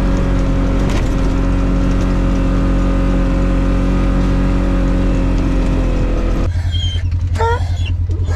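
Side-by-side utility vehicle's engine running steadily. About six seconds in, the sound cuts to a lower, pulsing engine idle, and a hound gives a couple of short rising whines.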